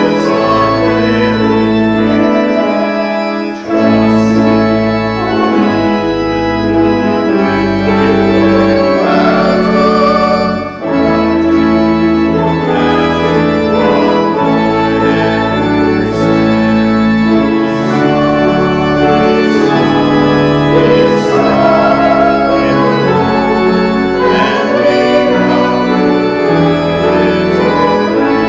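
Church organ playing slow, held chords over a low pedal bass, with brief breaks between phrases about 4 and 11 seconds in.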